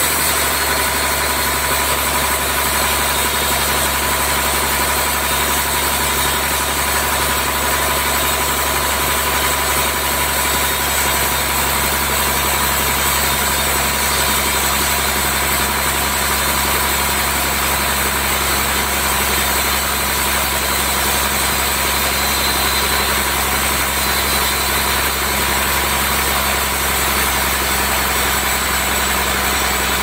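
Large band sawmill running steadily as its blade cuts lengthwise through a trembesi (rain tree) log: a loud, even machine drone with a constant thin whine.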